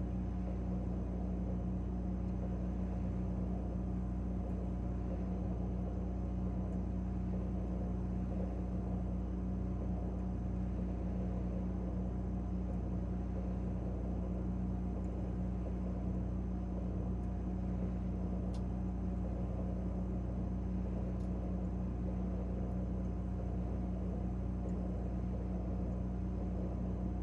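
Refrigerator running, heard from inside the closed fridge: a steady low electrical hum and drone from the compressor and fan, with a couple of faint ticks in the second half.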